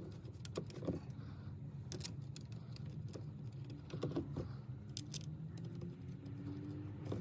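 Light metallic clicks and clinks of bolts and hand tools being handled while an aftermarket steering wheel is fitted, over a steady low hum.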